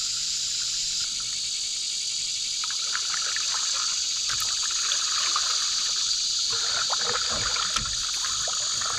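Double-bladed paddle dipping and water trickling off the blades as a cedar strip canoe is paddled on the river, irregular splashes starting about three seconds in. A steady, high insect drone runs underneath.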